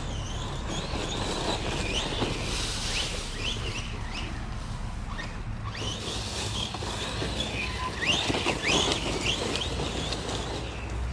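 Losi Lasernut RC truck's electric motor whining in many short rising sweeps as the throttle is punched on and off, over a steady low rumble. The sweeps come thickest around two seconds in and again near the end.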